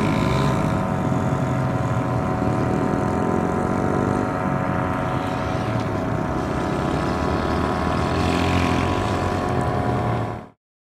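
Small dirt bike engines running as the bikes ride across the dirt, a steady engine drone with some rising pitch. The sound cuts off suddenly near the end.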